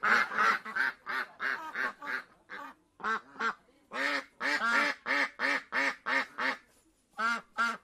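A duck quacking over and over, in quick runs of short quacks, about three or four a second, with brief pauses between the runs.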